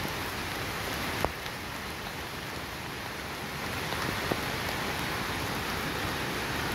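Steady rain falling, an even hiss, with two sharp single taps, one about a second in and one about four seconds in.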